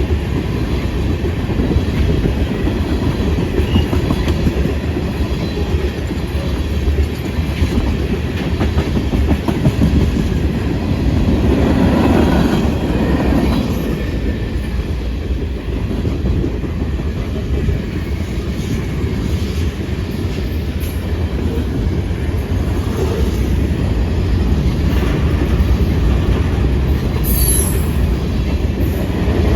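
Long freight train's cars rolling past, a steady rumble with the clatter of wheels over the rail joints, swelling slightly about twelve seconds in.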